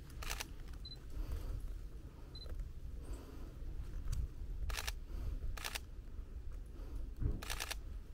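Sony a7III camera shutter firing in four short bursts of rapid clicks: one at the start, then three close together in the second half. Two short high beeps come between the first bursts, the camera's focus-confirmation signal, over a low rumble of handling and wind.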